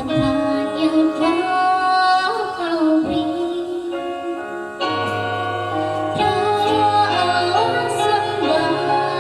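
A woman singing with instrumental accompaniment, holding long wavering notes. A deeper steady bass comes in about halfway through.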